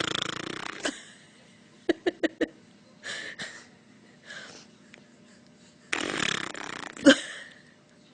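A loud, rasping fake fart noise that fades out within the first second, followed by a quick run of four clicks. A second long, rasping fart noise starts about six seconds in and ends in a sharp pop.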